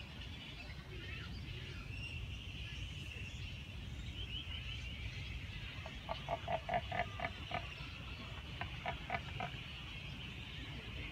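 A chorus of birds chirping, cut across twice by a rapid run of short pitched calls, about six a second. The first run starts about six seconds in, and a shorter one follows nearly three seconds later.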